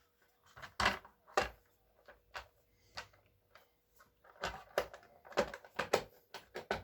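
Plastic cover of a Craftsman chainsaw being set back in place over the air filter: a string of separate plastic clicks and knocks, two louder ones in the first second and a half and a quicker cluster in the last two seconds.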